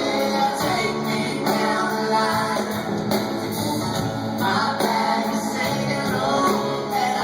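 Rock band playing live with a lead singer over guitars and drums.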